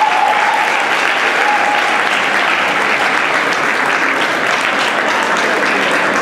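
Audience applauding steadily, with a held high note fading out about two seconds in.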